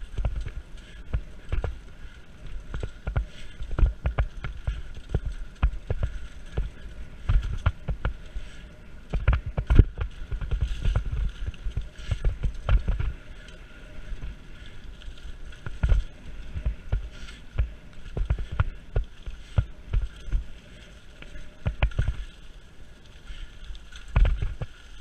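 Mountain bike ridden along a leaf-covered dirt singletrack: tyres rolling over dirt and dry leaves under a steady low rumble, with frequent sharp knocks and rattles as the bike goes over bumps, the loudest about ten seconds in and near the end.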